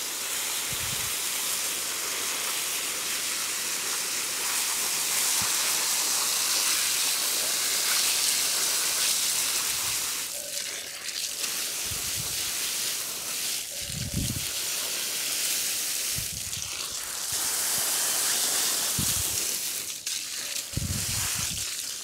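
Garden hose spray nozzle hissing as its jet of water hits the plastic mesh filter of a window air conditioner, rinsing the dust out of it. The spray eases off briefly a few times, and a few soft low thumps come through.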